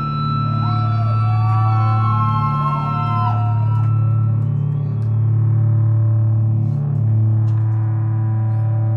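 Live band playing a loud, sustained drone of distorted, effects-laden electric guitar that swells and dips. Wavering, gliding higher tones ride over it in the first few seconds.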